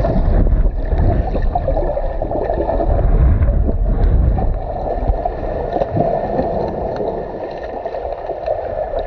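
Muffled churning and bubbling of river water stirred by a swimmer, recorded under water, with a heavy low rumble that eases off about five seconds in.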